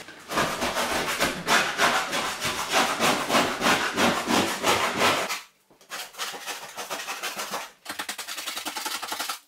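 Metal putty knife scraping rapidly back and forth over a drywall edge, knocking loose material off before taping. Two short pauses break it up, and the strokes come quicker and finer near the end.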